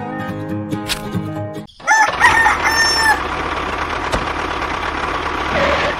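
Background music that cuts off after about a second and a half, then a rooster crowing once over a steady hiss.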